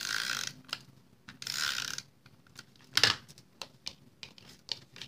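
Stampin' Up! Snail tape runner drawn twice across the back of a cardstock piece, each pass a short ratcheting rasp of about half a second. About three seconds in comes one sharp tap, followed by light ticks of paper being handled.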